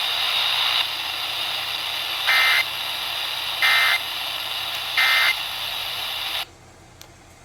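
Emergency Alert System end-of-message data tones: three short, identical bursts of warbling digital tone about a second and a half apart over radio hiss, marking the end of the warning. The hiss cuts off about six seconds in.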